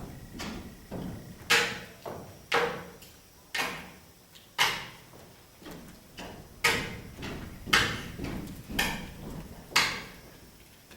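Cups and cutlery struck on a table in a rhythm: a sharp, ringing strike about once a second, with softer knocks in between and a short break midway.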